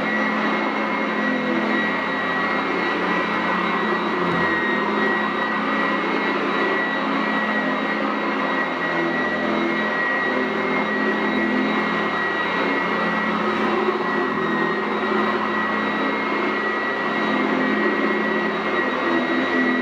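Sanitaire SC899F commercial upright vacuum cleaner running steadily over carpet: a constant motor drone with a high, steady whine.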